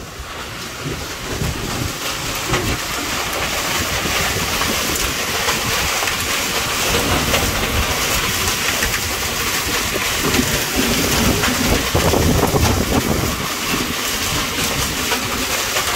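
Heavy storm rain pouring down and splashing on the yard, wooden benches and porch, a dense steady rush with fine pattering hits, growing louder over the first few seconds.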